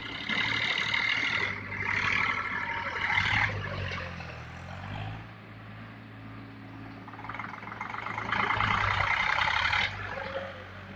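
Eicher tractor diesel engines running with a steady low hum, broken three times by loud, harsh, hissy stretches of one to two and a half seconds as the tractors drive through the mud.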